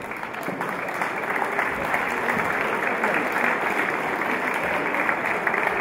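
Crowd applauding, with many hands clapping steadily.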